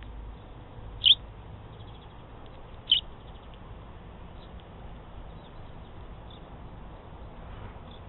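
Sparrow chirping twice, two short high chirps about two seconds apart, over a faint steady low rumble.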